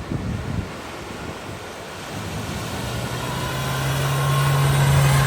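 A motor vehicle approaching through floodwater: its engine drone comes in about two and a half seconds in and grows steadily louder toward the end, over a constant rushing of water and wind on the microphone. A couple of low thumps sound right at the start.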